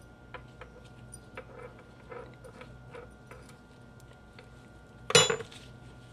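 Soft ticks and crinkles of a knife cutting potato gnocchi dough on a plastic zip-top bag, then a sharp metallic clink about five seconds in as the knife is set down on the wooden table.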